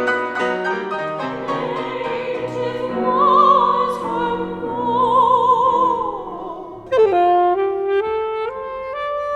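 Music: a classically trained voice sings with wide vibrato over accompaniment. About seven seconds in it cuts abruptly to a different passage with a held melody line climbing step by step.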